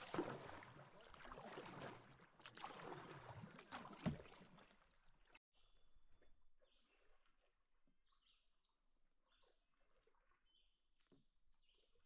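Canoe paddling: water swishing around the paddles and hull, with a few knocks. About five seconds in it cuts off suddenly, and faint, chirping birdsong follows.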